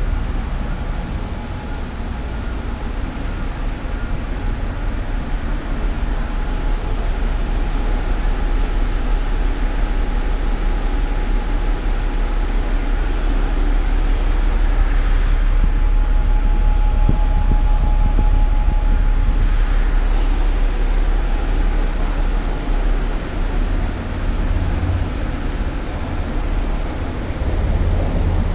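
Diesel bus engines idling: a steady low rumble, with a faint steady whine through the middle stretch.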